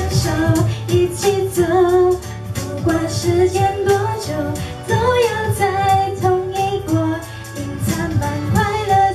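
A woman singing a Mandarin pop ballad into a handheld microphone over pop backing music with a steady beat.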